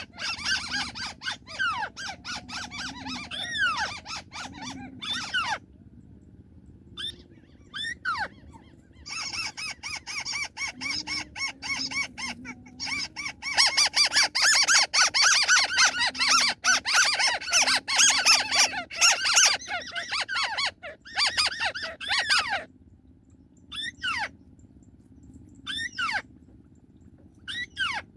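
White-browed crake calls played back as a lure: sharp, arched single notes repeated at intervals, with a dense chattering run of calls for about nine seconds in the middle.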